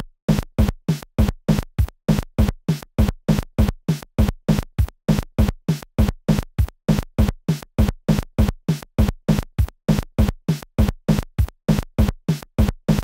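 Rapid, evenly repeating electronic thump, about three to four pulses a second, each a short low hit that drops in pitch.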